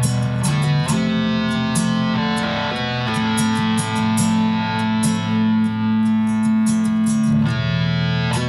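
Nylon-string guitar played through an effects unit in an ambient style. Plucked notes ring out over long, held low tones.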